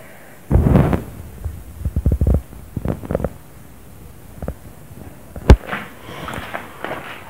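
Dull low thumps and a run of knocks, then one sharp loud click about five and a half seconds in: handling and movement noise from a person walking through a rubble-strewn room with a handheld camera.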